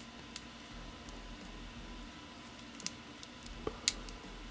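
A few faint clicks and light handling of a plastic action figure as its elbow joint is bent inward, the sharpest click near the end.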